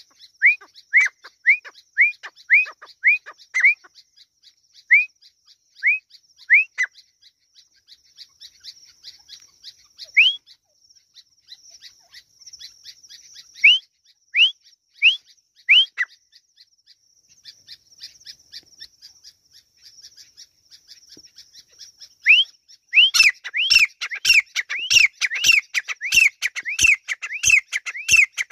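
Grey francolin calling with short rising whistled notes, a quick run at first, then a few scattered notes. It breaks into a loud rapid series about three-quarters of the way in, with sharp clicks among the calls.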